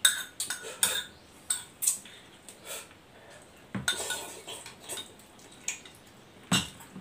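Metal fork clinking and scraping against a bowl of noodles, with several short sharp taps in the first two seconds. About four seconds in, noodles are slurped from the raised bowl, and a last sharp clink comes near the end.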